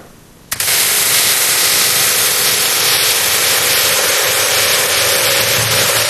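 Tiny chainsaw running: a loud, steady, harsh hiss over a motor hum, starting suddenly about half a second in.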